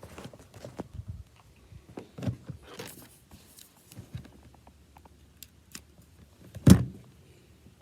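Scattered light clicks and knocks, with one louder sharp knock near the end.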